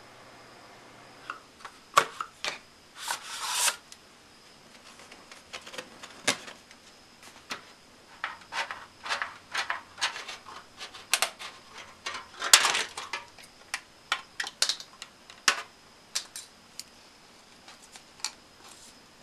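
Thin metal foil handled and cut with scissors by hand: an irregular run of crinkling crackles and sharp clicks, starting about a second in, with a few longer rustles.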